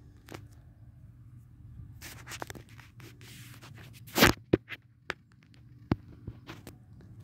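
Scattered scratchy clicks and rustles of handling noise on a handheld camera's microphone, the loudest a sharp scrape about four seconds in, over a faint steady low hum.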